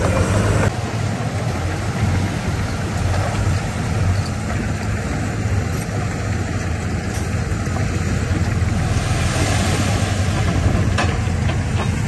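Heavy diesel earthmoving machinery running steadily, a low even engine note under a broad mechanical rumble; it eases off slightly less than a second in.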